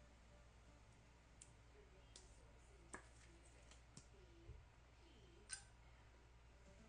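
Quiet handling of trading cards and packs: a few scattered light clicks and taps, the sharpest about five and a half seconds in.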